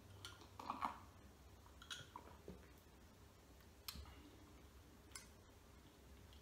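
Faint mouth clicks and sounds of sipping and swallowing from a mug of cappuccino, the most noticeable a little under a second in, with a light tap near four seconds as the mug is set down on its coaster.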